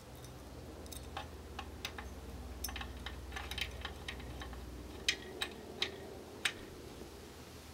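Light irregular metallic ticks from a hand tool working a fitting on the side of an all-aluminium radiator, then four sharper clicks a little apart near the end.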